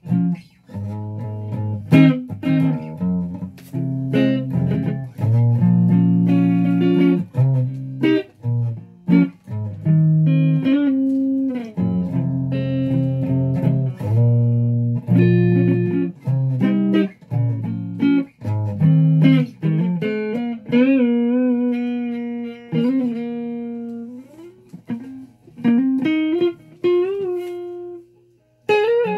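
Flying V electric guitar played: picked riffs of low notes and chords, moving about two-thirds of the way through into a higher single-note lead line with bent notes.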